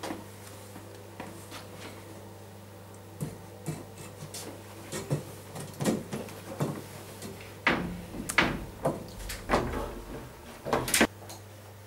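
Knocks, bumps and scrapes of a metal-legged stacking chair being carried, set down and climbed on, with a run of louder bumps in the second half. A steady low hum sits underneath.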